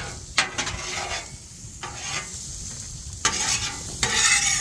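Metal spatula scraping and clinking on a flat-top griddle while steak fries and onions sizzle in oil, being tossed together. There are sharp clinks about half a second in and just after three seconds, and a longer, louder scrape near the end.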